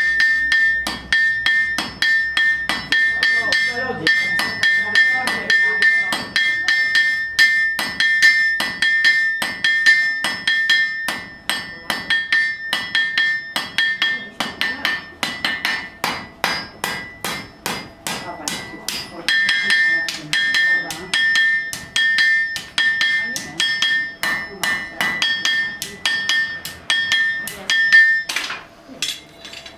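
Blacksmith's hand hammer striking red-hot iron on an anvil, with steady blows about three a second. Each blow leaves a bright metallic ring from the anvil. The hammering stops near the end.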